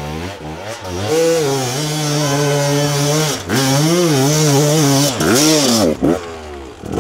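Two-stroke enduro dirt bike engine revving hard, its pitch rising and falling with the throttle, dropping out briefly twice.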